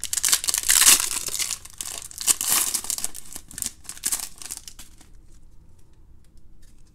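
Foil wrapper of a trading card pack being torn open and crinkled, a loud crackling for about five seconds. It then gives way to faint light ticks as the stack of cards is slid out and held.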